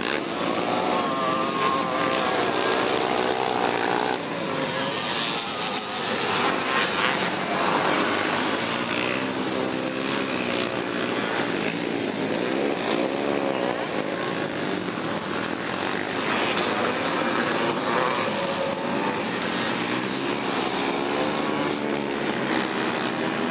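Engines of several racing three-wheelers (ATCs) on a dirt track, revving up and dropping back again and again, their pitch rising and falling as the trikes accelerate and back off.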